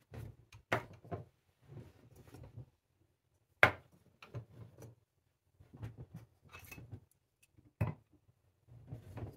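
Glass spice jars with bamboo lids being set down and moved about on a countertop: scattered knocks and light clinks, the loudest a sharp knock about three and a half seconds in.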